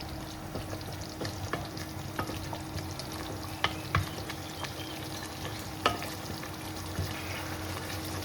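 Chicken pieces sizzling in hot Massaman curry paste and oil in a saucepan as they are stirred to coat them, with a sharp knock of the utensil against the pan now and then.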